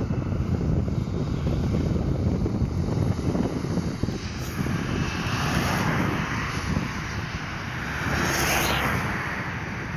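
Boeing 737 jet engines running, their hissing roar building from about halfway through and loudest near the end, over low rumbling wind noise on the microphone.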